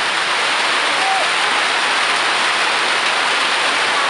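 Heavy rain pouring steadily onto pavement and surfaces, a dense even hiss.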